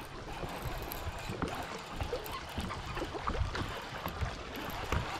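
Water lapping around a fishing boat, with scattered small knocks and clicks on the boat.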